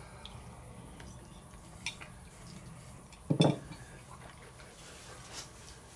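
Fork clinking on a ceramic plate during a meal: a light click, then a louder knock just over three seconds in, and another faint clink near the end.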